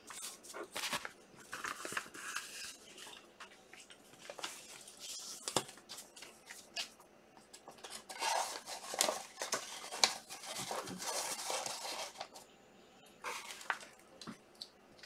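Trading card packs being opened and handled: wrappers crinkling and tearing, with irregular rustles and sharp clicks as cards and packaging are handled, busiest in the middle of the stretch.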